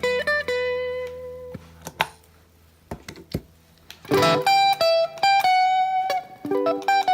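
Electric guitar played through a drive pedal. Picked single notes, a quiet pause of about two seconds, then a strummed chord about four seconds in, followed by more picked notes.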